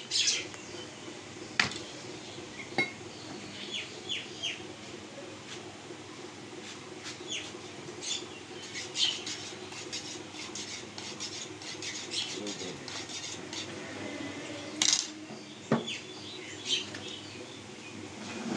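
Scattered sharp knocks and metallic clinks from a butcher's cleaver and knife on a wooden chopping block, the loudest about 15 seconds in.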